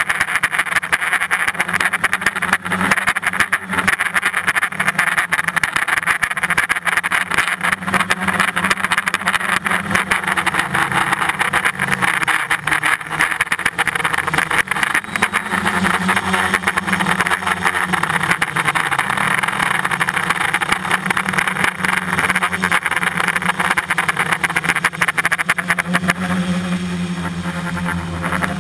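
Small multirotor drone's electric motors and propellers buzzing steadily, heard from on board. The hum drifts lower and higher in pitch as the motors change speed.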